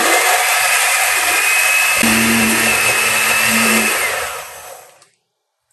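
Oster countertop blender chopping peeled garlic cloves with a little oil and salt into a paste, its motor running steadily for about four seconds. It is then switched off and winds down to silence, its whine falling as it stops.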